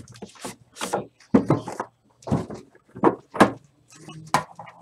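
Trading-card box being handled and opened: a run of short scrapes and knocks as the lid is worked off the box and the box is moved on the table.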